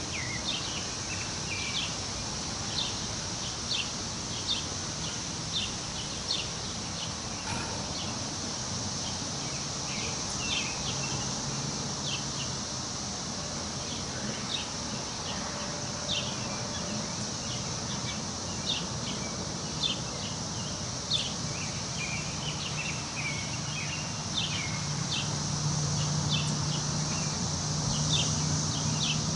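Wind rustling through forest trees, with birds chirping in short calls about once a second over a steady high hiss. A low hum rises near the end.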